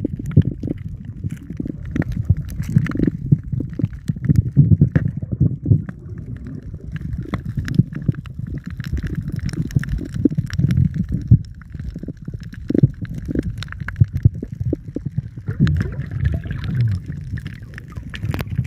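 Muffled underwater noise picked up by a camera held underwater: a low, uneven rumble of moving water with many irregular small clicks and knocks.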